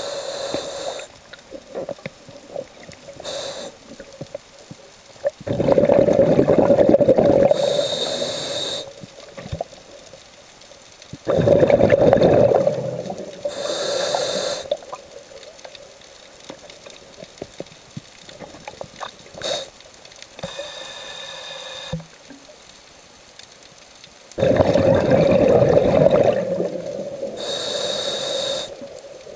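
A scuba diver breathing through a regulator, heard from underwater: several breath cycles, each a long gurgle of exhaled bubbles followed by a shorter hiss of inhalation, with quieter water noise between breaths.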